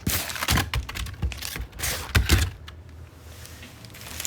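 Knocks, scrapes and rustles of a box and its packing being handled during an unboxing. The sounds come in a quick cluster over the first two and a half seconds, then only a few faint ticks.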